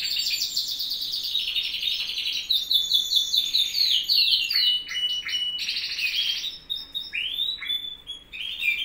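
Caged pet songbirds singing in fast, rolling trills and chirps with several voices overlapping; the song grows sparser and broken for the last two seconds or so.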